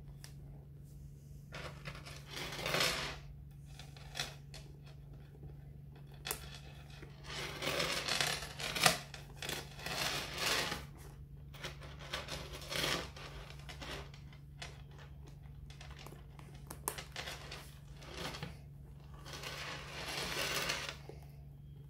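Handling noise from a coated-canvas cosmetic pouch and its thin gold-tone metal chain: rustling and the chain jingling and clicking in several bursts, with one sharp click about nine seconds in. A steady low hum runs underneath.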